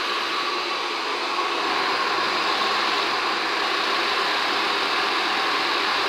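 Handheld hair dryer running steadily, blowing air at a spinning fidget spinner; the noise grows slightly louder about a second and a half in.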